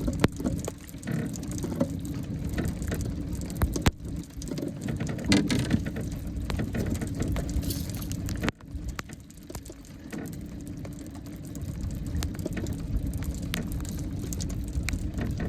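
Light rain pattering over a steady low rumble, with scattered sharp clicks and knocks throughout. The level drops abruptly about eight and a half seconds in.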